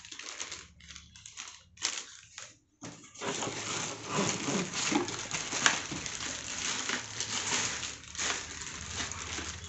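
Packaging rustling and crinkling as a laptop power adapter is handled out of the box: short broken rustles at first, then steady dense crinkling from about three seconds in.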